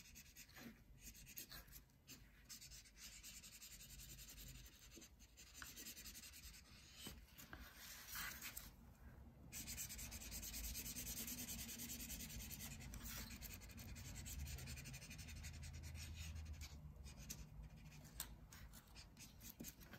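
Felt-tip marker scribbling back and forth on paper, colouring in a cut-out ear: faint, quick scratchy strokes.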